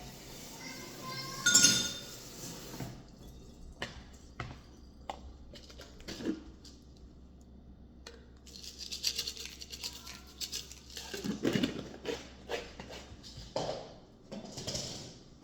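Kitchen dishes and utensils being handled: a loud ringing clink about a second and a half in, then scattered knocks and clatter with brief bursts of scraping.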